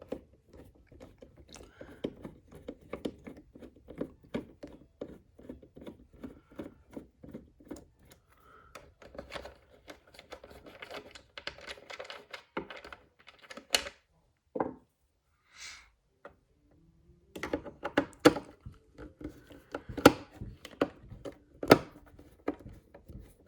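A screwdriver working screws out of a portable radio's back cover: a long run of small clicks and ticks, with a few louder sharp knocks in the last third.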